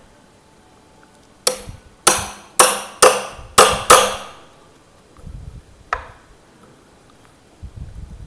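Hammer striking the head of a Mokuba cat's paw claw bar, metal on metal, each blow ringing briefly: six quick blows starting about a second and a half in, then one lighter blow near six seconds. The blows drive the bar's claws into the wood beneath a sunken nail head so the nail can be pried out.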